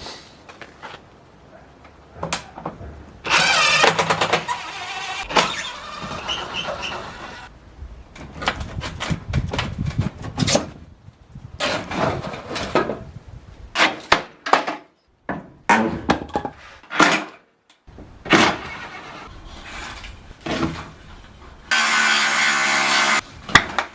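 A quick succession of workshop sounds: power tools running in short spells, with scraping and knocks in between, as old timber framing is cleaned up and new framing pieces are cut.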